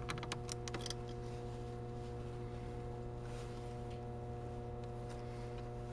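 A few light clicks and taps of hand work on the mower's battery cable connection in the first second, then a steady low hum with only faint ticks.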